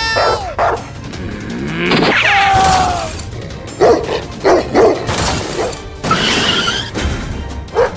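Background music with short, high cries that bend in pitch, and a loud noisy crash-like sound about two seconds in.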